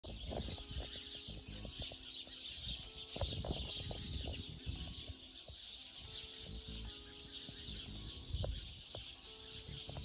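Many small birds chirping and twittering together without a break, over soft background music with slow held notes.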